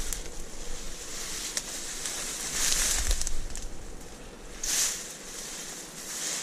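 Dry grass and reed stems rustling and swishing as someone pushes through them on foot, with louder swishes about three seconds in and again near five seconds.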